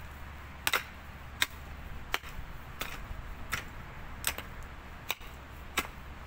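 Pickaxe striking hard, stony wet soil in a steady rhythm: about eight sharp blows, evenly spaced a little under a second apart.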